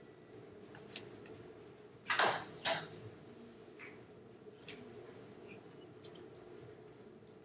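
Hands tapping and brushing against each other and against clothing as a person signs: scattered soft clicks, with a louder pair of short rustles a little over two seconds in. A low steady room hum runs underneath.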